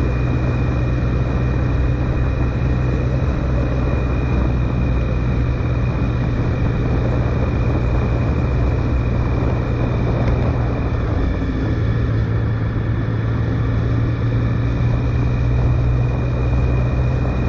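Triumph Sprint GT's three-cylinder engine running steadily under way, with wind and road noise and a thin, steady high whine over it. The engine note eases briefly about eleven seconds in, then comes back.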